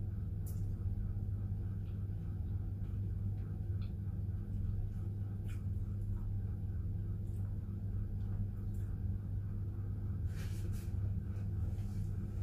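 A steady low machine hum with a deeper rumble under it, typical of a household appliance. A few faint clicks and crunches of eating are heard over it, with a small cluster near the end.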